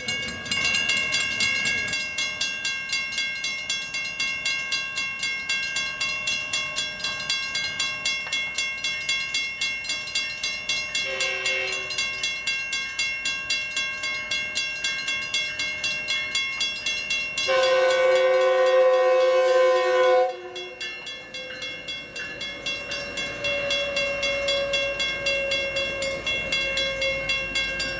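Railroad grade-crossing warning bells ringing in a steady, rapid pulse while an approaching Metrolink commuter train sounds its multi-tone horn: a short blast, then a louder blast of about three seconds. The train then begins rumbling through the crossing near the end.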